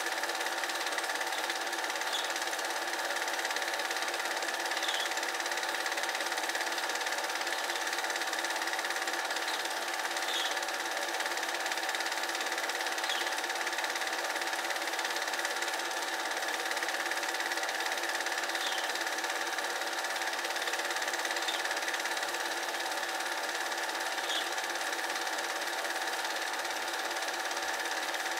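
Film projector running with a steady mechanical whirr, with a faint high chirp every few seconds.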